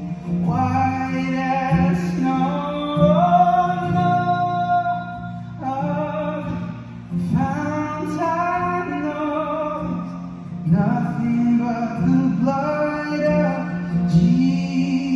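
A man singing into a microphone while strumming an acoustic guitar, with a long held note in the vocal line about three to five seconds in.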